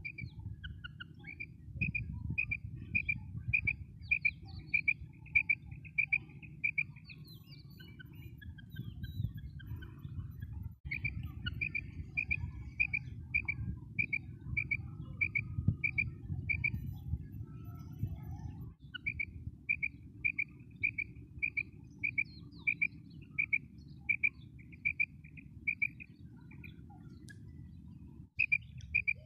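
Female common quail calling: runs of short, evenly spaced high notes, about two a second, broken by pauses of a few seconds, over a steady low wind rumble.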